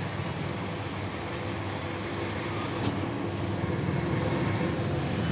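Steady street traffic noise, vehicles running past in a constant rumble, with one faint click about three seconds in.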